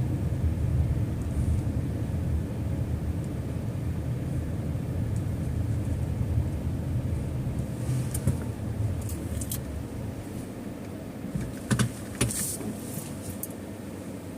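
A car running with a steady low rumble of engine and road noise that eases off after about ten seconds. Several short, sharp clicks and rattles come in two clusters near the end.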